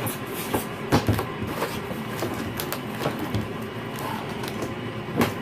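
Cardboard box being handled and slid about on a surface: a steady scraping rustle with a few sharp knocks, the loudest about a second in and just before the end.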